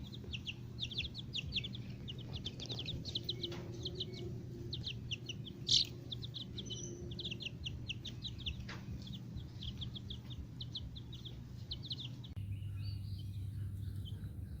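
Young Black Copper Marans chicks peeping, many short high peeps in quick succession over a steady low hum. The peeping stops about twelve seconds in.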